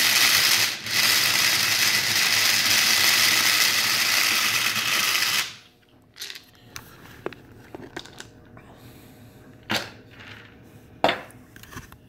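Electric blade coffee grinder running on a load of whole, hard grain corn kernels for about five and a half seconds, with a brief dip just under a second in, then cutting off. The kernels come out barely broken. Afterwards come a few scattered knocks and clicks.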